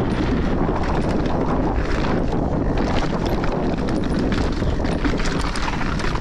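Mountain bike ridden along a trail: wind buffets the camera microphone over the rumble of the tyres rolling across a wooden boardwalk and then onto dirt, with frequent clicks and rattles from the bike that grow more frequent in the second half.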